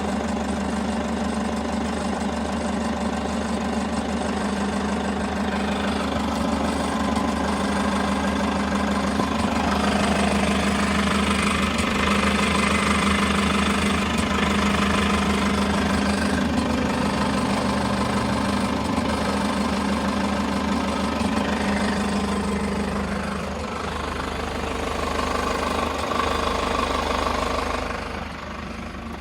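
Toyota HiAce KDH206V's 1KD-FTV turbo-diesel idling with the usual diesel clatter, mixed with an irregular 'shari-shari' rattle like a washer shaken on a bolt. The owner has been told this comes from idle hunting, with intake air and fuel quantity swinging back and forth, and suspects sludge in the EGR valve, intake manifold or throttle valve.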